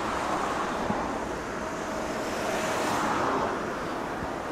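Steady rushing outdoor noise that swells and fades twice.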